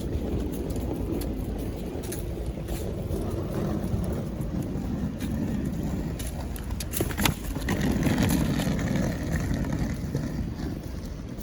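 Steady low rumble of road traffic passing, swelling twice, with a few sharp clicks about seven seconds in.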